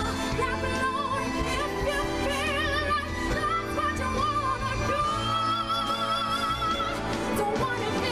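A female pop singer singing live into a microphone over instrumental backing, rising to a long high note held with wide vibrato about five seconds in.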